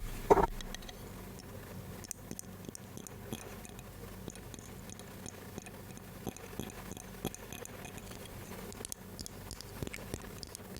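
Close-miked ASMR trigger sounds: one louder knock just at the start, then a steady scatter of small, soft clicks and taps.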